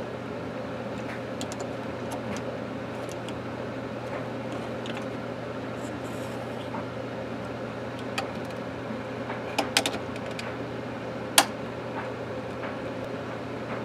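Small clicks and taps of a screwdriver and the plastic casing of a cordless phone handset being handled and pried apart, over a steady low hum. A few clicks bunch together about two-thirds of the way through, and one sharp click comes a little after.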